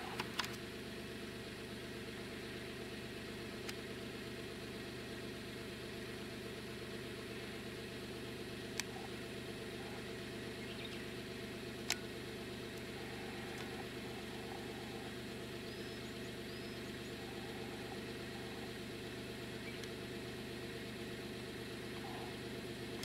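Steady drone of a boat's diesel engine idling, with a few sharp clicks, the loudest about twelve seconds in.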